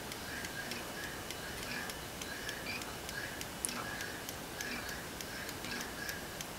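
Pin-pallet (Roskopf-type) escapement of a bare mechanical alarm-clock movement ticking steadily, a few ticks a second.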